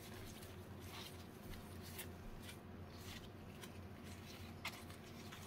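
Faint handling of Pokémon trading cards from a freshly opened booster pack: soft rustling with a few light, scattered clicks and taps, the clearest one about three-quarters of the way through, over a low steady room hum.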